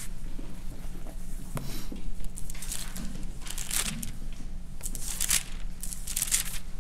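Pages of a Bible rustling as they are turned and smoothed, a handful of short papery swishes over a low steady hum.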